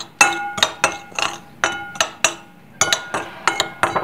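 Spoon clinking repeatedly against a glass mixing bowl while stirring dry cocoa powder and whipping-cream powder together, about three uneven strikes a second, each leaving a short glassy ring.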